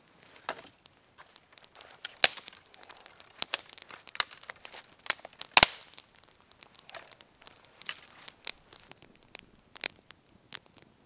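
Small campfire of twigs crackling, with irregular sharp snaps and pops, a few much louder than the rest, as sticks are laid onto it.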